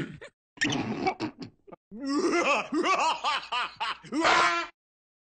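A cartoon character's voice, laughing: a few short vocal sounds, then from about two seconds in a long run of quick rising-and-falling "ha" syllables that stops abruptly near the end.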